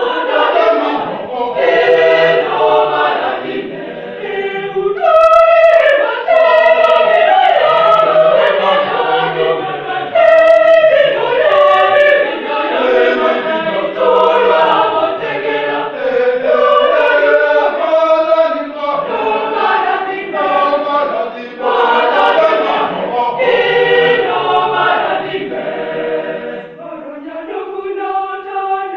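Church choir singing, many voices together.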